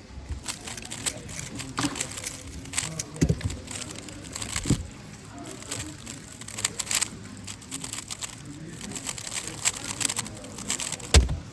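Indistinct background voices with scattered sharp clicks and clacks, plus a couple of dull thumps and a sharp knock near the end.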